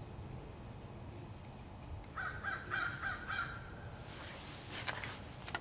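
A bird calling in a quick run of repeated calls about two seconds in, followed by a few sharp clicks near the end.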